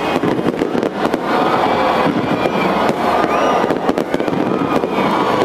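Large fireworks display going off without a break: dense, rapid crackling and popping of many shells bursting at once.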